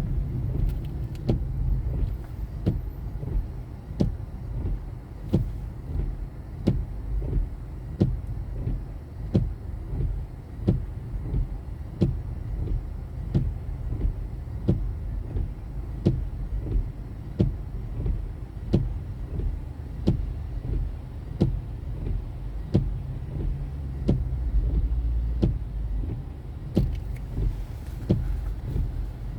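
Car interior with a steady low rumble of engine and road, and a turn-signal indicator ticking evenly about once every three quarters of a second. The low rumble swells briefly near the end.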